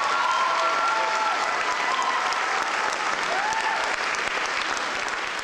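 Audience applauding, with a few whoops and cheers over the clapping, which eases off slightly near the end.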